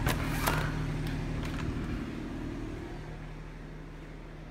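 A steady low mechanical hum that fades away after about two seconds, with a few light knocks in the first second and a half.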